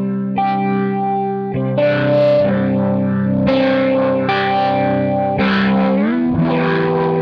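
Two electric guitars playing together through a Boss RT-20 Rotary Ensemble, a Leslie-style rotating-speaker effect pedal: one holds chords while the other plays melody lines over them. Sustained notes change every second or so, and there is a rising slide in pitch near the end.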